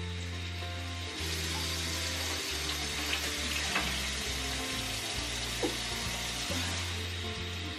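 Kitchen faucet running into a stainless steel sink, a steady rushing hiss that starts about a second in, over soft background music.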